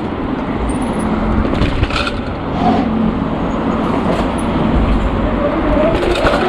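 Steady rushing wind and rolling noise from a mountain bike being ridden, with a few knocks as it goes over bumps.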